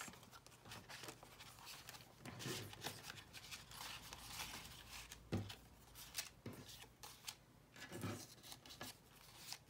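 Faint rustling of paper cards, tags and envelopes being handled and stacked by hand, with a few soft taps as pieces are set down on the desk.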